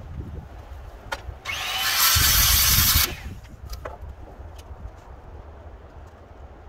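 Power saw running and cutting through a wooden board: a loud burst of about a second and a half that builds quickly and cuts off abruptly, with a few light knocks of wood before and after.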